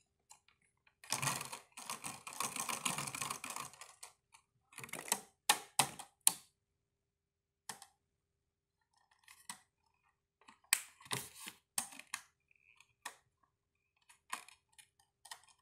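Empty clear plastic bottle crinkling and clicking as a toddler squeezes and turns it in her hands. The clicks come in irregular clusters, with a denser run of crackling about a second in that lasts a few seconds.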